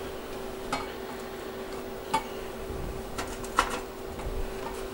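A few sharp metallic clinks and knocks as the aluminized steel exhaust pipe is handled against the steel welding table, the loudest about three and a half seconds in, over a steady hum.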